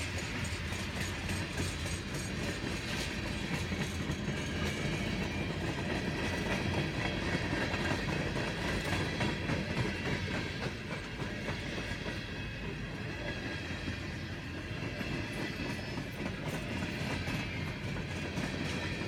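Freight train cars (covered hoppers and gondolas) rolling past at close range: a steady rumble of steel wheels on rail with repeated clicks as the wheels cross rail joints.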